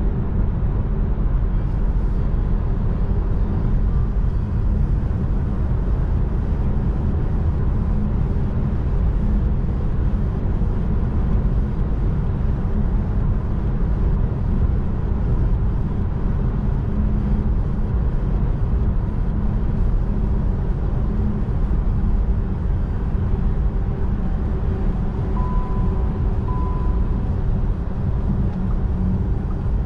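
Steady tyre and wind roar inside the cabin of a Volkswagen ID.3 electric car cruising at motorway speed, with no engine note. A short double beep sounds near the end.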